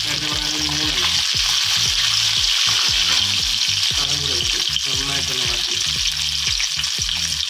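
Dried red chillies, peanuts, chana dal and mustard seeds sizzling steadily in hot sesame oil in a wok, stirred with a metal slotted spoon.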